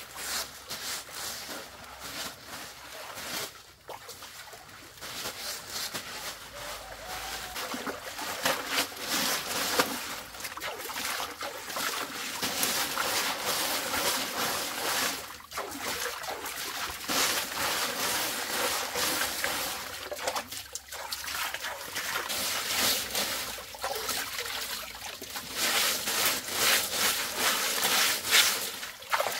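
Water trickling and splashing, an uneven rushing noise that drops away briefly a few times.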